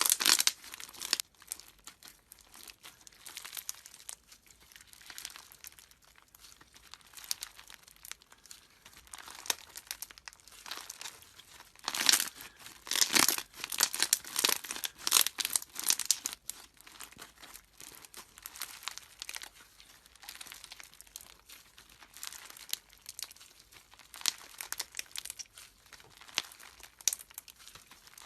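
Slime being squeezed and worked by hand, giving irregular crackling and popping, busiest about halfway through.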